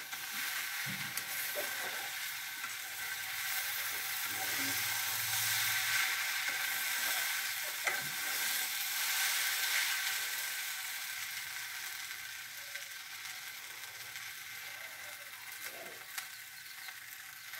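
Chopped greens sizzling as they fry in a small karahi (wok) over a fire, with a steady hiss and the metal spatula scraping the pan now and then as they are stirred. The sizzle grows a little louder in the middle and eases off toward the end.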